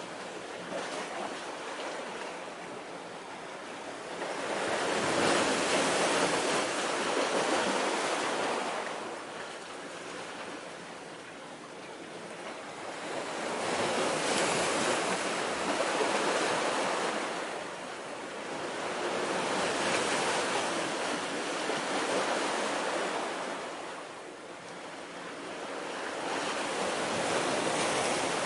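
Sea waves washing in against a breakwater of concrete tetrapods: a hushing wash that swells and ebbs in about four slow surges.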